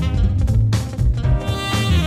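Background music with a steady beat and a bass line, in a swing-jazz style.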